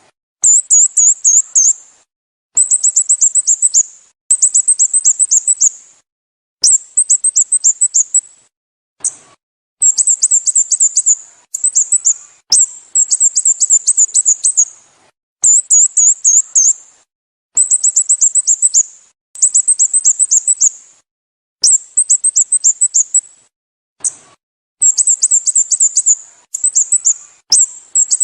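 Sooty-headed bulbul calling: bursts of rapid, high-pitched chirps, each about a second long, repeated over and over with short pauses between.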